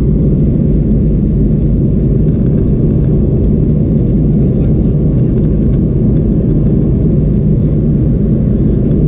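Steady, deep cabin drone of a Boeing 737-400 in flight, heard from a window seat over the wing: its CFM56-3 engines and the rush of air along the fuselage.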